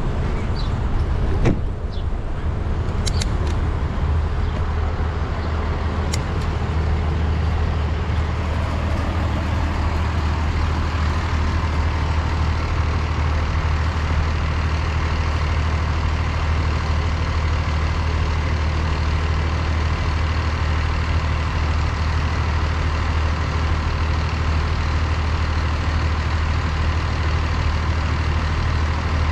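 City street traffic: a steady low engine hum with road noise, and a few short clicks in the first few seconds.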